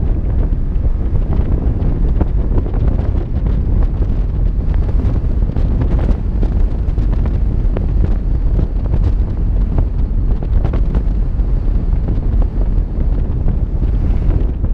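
Wind buffeting the microphone of a camera riding on a moving vehicle: a loud, steady low rumble with no clear engine note.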